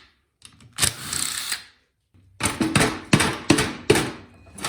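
Rubber mallet tapping a small-engine connecting-rod cap to pop it loose from the crankshaft, a quick series of sharp taps on metal. A brief rasping scrape comes before the taps.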